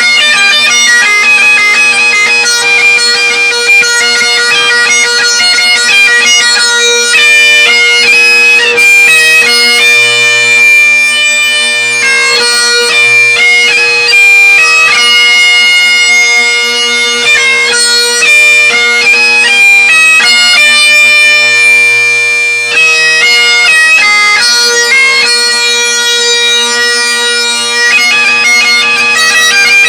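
Bagpipes played solo: the drones hold one steady note beneath a chanter melody with quick note changes and short ornamental notes. Loud and close throughout.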